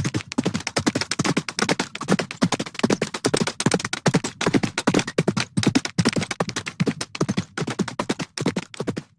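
Horse's hooves galloping: a fast, continuous run of hoofbeats.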